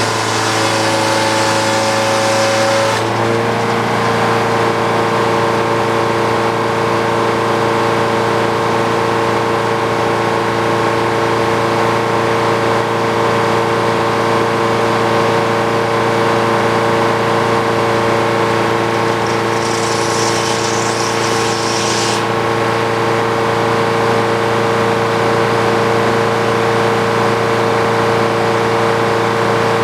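Frick OO circular sawmill running steadily, its power unit holding a constant pitch. For the first three seconds the blade cuts through the ash log with a high hiss that stops suddenly as the cut ends, and a shorter hiss comes about twenty seconds in.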